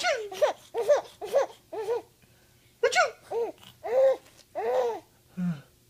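Baby laughing in a run of short, high-pitched bursts, each rising and falling in pitch, with brief pauses between runs.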